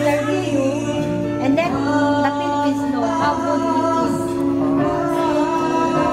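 Music with singing: a sung melody over steadily held accompanying notes.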